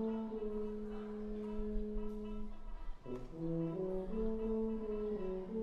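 A brass quintet of two trumpets, French horn, trombone and tuba playing a pop-medley arrangement: a chord held for about two seconds, a short break about three seconds in, then moving notes resume.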